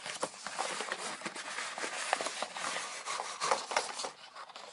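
Packaging being handled and opened: continuous crinkly rustling with many small clicks, easing off near the end.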